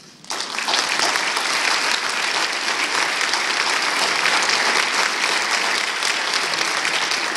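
A chamber full of people applauding, breaking out just after the start and staying loud and even throughout.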